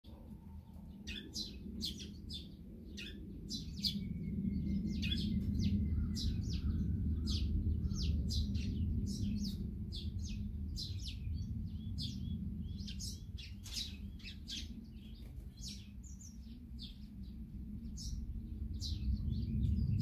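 Small songbirds chirping, many short high calls in quick succession, over a steady low rumble.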